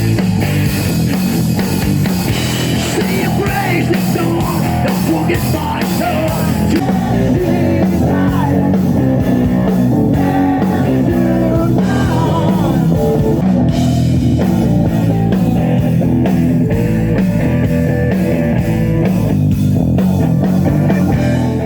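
Loud rock music with electric guitar and singing, cutting off abruptly at the end.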